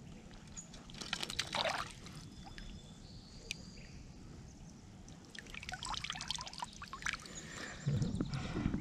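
Water splashing and dribbling as a rainbow trout is handled in a landing net in shallow lake water, in bursts about a second in and again around six to seven seconds in, with a louder low handling sound near the end as the fish is lifted out.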